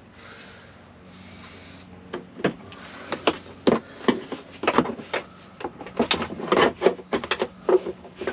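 Jeep Wrangler JL rear cargo-area plastic trim panel being pried and pulled loose at its retaining tabs. From about two seconds in there is an irregular run of sharp plastic clicks and knocks.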